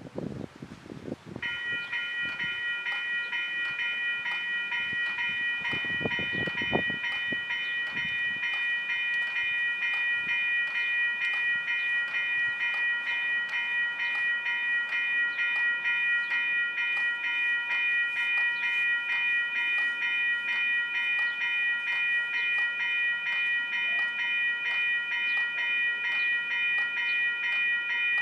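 Railroad crossing bell ringing continuously, a rapid, evenly repeating ding with a bright metallic ring, starting about a second in. A few low knocks sound in the first several seconds.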